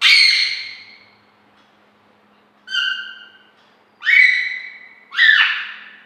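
Rose-ringed parakeet giving four loud calls, the second shorter and quieter, the last sliding down in pitch.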